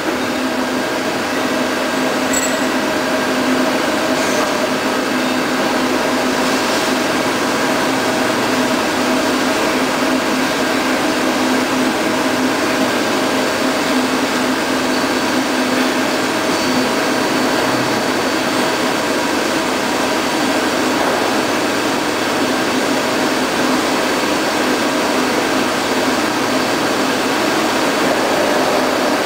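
Mazak Integrex 200SY CNC turning centre running a program: a steady machine whirr with a low hum and a couple of steady tones in it, and a faint high tone that joins about halfway through.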